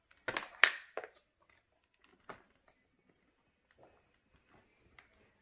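Plastic parts of a Hoover Power Path carpet washer being handled. Three sharp clacks in the first second, the second the loudest, then a few faint taps.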